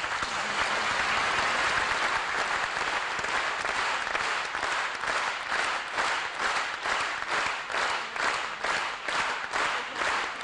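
Audience applauding loudly at the end of a poetry recitation, the clapping settling into rhythmic clapping in unison, about two claps a second, from about halfway through.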